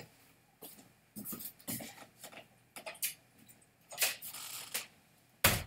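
Footsteps and small knocks and rustles on a hardwood floor as someone walks across a room, then one loud thump near the end as a door is shut.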